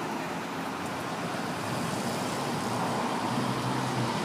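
City street traffic: a steady wash of passing cars that grows a little louder toward the end, with a low engine hum coming through about three seconds in.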